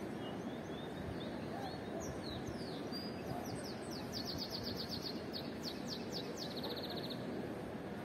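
A small songbird singing: scattered chirps, then a run of quick descending notes and a fast trill about three-quarters of the way through. Steady outdoor background noise underneath.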